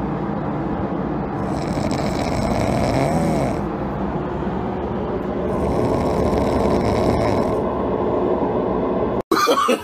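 Sleeping puppy snoring loudly, a long rasping breath about every four seconds, cut off abruptly near the end.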